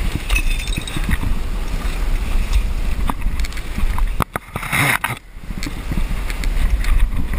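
Wind buffeting the microphone: a steady, uneven low rumble, with scattered small clicks and scrapes and a brief rustle just before five seconds in.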